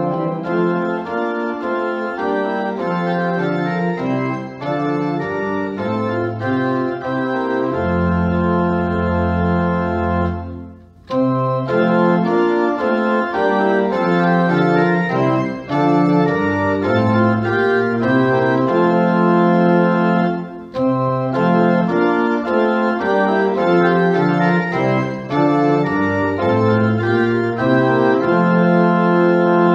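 Organ playing slow held chords in phrases, with a brief break about ten seconds in before it picks up again.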